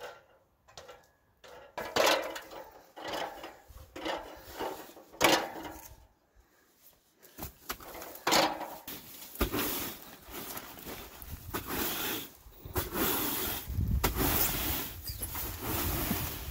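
Demolition of an old wooden chicken coop with a pry bar: a series of separate knocks, scrapes and wood-on-wood rubs a second or so apart, with a short pause. From about nine seconds in, a steady rustling noise with a low rumble takes over.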